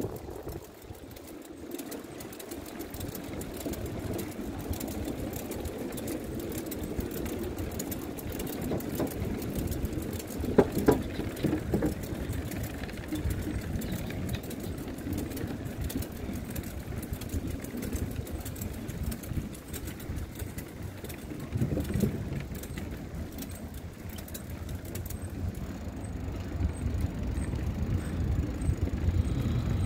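Bicycle tyres rolling over a wooden plank boardwalk: a steady rumble with a rapid clatter as the wheels cross the board joints, and a few louder knocks about ten and twenty seconds in.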